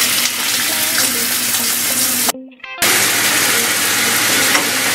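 Pieces of low-temperature, vacuum-cooked duck breast sizzling in hot oil in a frying pan, being seared to brown them. The sizzle drops out for about half a second a little past the middle, then resumes.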